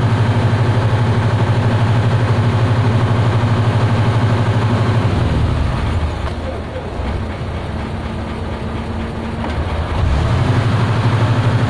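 A fishing boat's engine running with a steady low throb, easing down for a few seconds midway and then coming back up.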